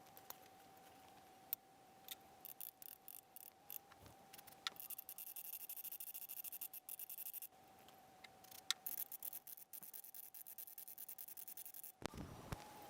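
Faint, irregular clicks of an oscilloscope plug-in's rotary volts-per-division switch being turned step by step, over a faint steady whine. The clicks bunch together between about one and ten seconds in.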